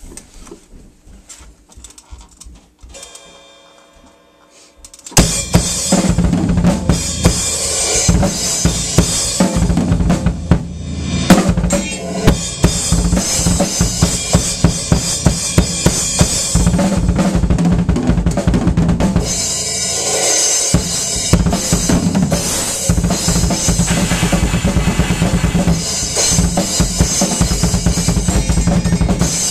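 Drum kit being played, a loose groove of kick drum and snare, starting suddenly about five seconds in after a few quiet seconds.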